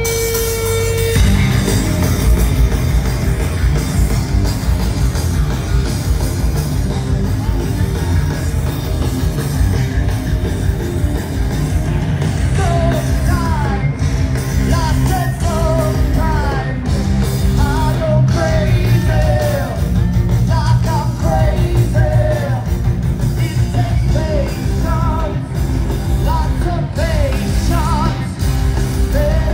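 Live rock band playing loud through a festival PA, electric guitar and drums coming in about a second in over a held steady tone. A man's lead vocal starts singing about twelve seconds in.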